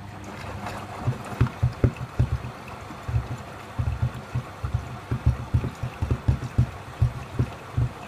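Beko front-loading washing machine rinsing: the drum turns wet laundry through the rinse water with sloshing and a fast, uneven run of low thuds. The sound builds up over the first second as the drum starts its turn.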